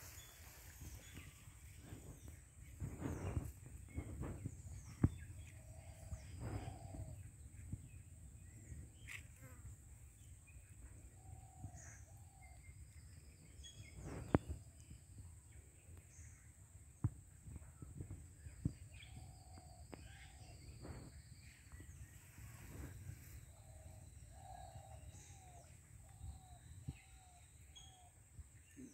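Quiet outdoor ambience by a pond: birds chirping and calling now and then, over a low rumble of wind. A few sharp knocks or clicks cut through, the loudest about 5 and 14 seconds in.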